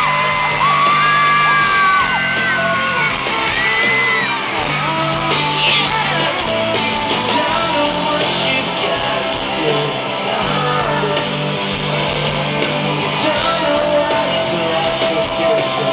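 Live amplified pop-rock band music heard from the audience in a large hall, with high screams from the crowd rising and falling over it.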